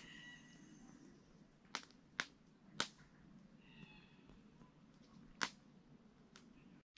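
Faint outdoor ambience broken by four sharp cracks, three close together in the second and third seconds and one more about five seconds in. Brief, faint, high-pitched calls come at the start and again about four seconds in.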